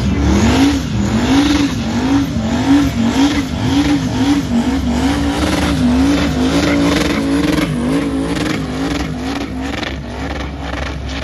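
Tuned performance car engine being revved again and again, its pitch rising and falling about once a second, with sharp crackles and pops from the exhaust.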